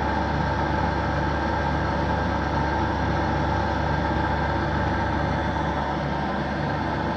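A CNC machine for machining aluminium housings runs steadily: a continuous machine hum with a low drone and several steady tones.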